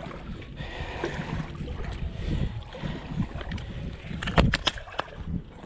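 Wind buffeting the microphone over water lapping at a concrete boat ramp, with a short cluster of sharp knocks about four and a half seconds in.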